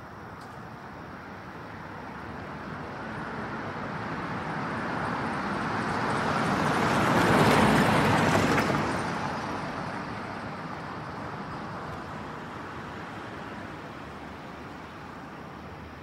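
A road vehicle passing by: a rushing sound that grows steadily louder, peaks near the middle, then fades away again.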